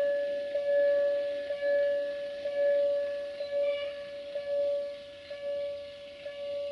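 Railway level-crossing warning bell ringing about once a second, each ring hanging on until the next.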